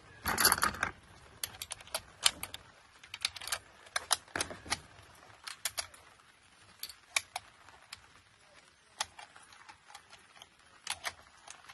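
Irregular small metallic clicks and clinks as the open action of a Schmidt-Rubin G1911 straight-pull rifle is handled, with a louder brief clatter just at the start.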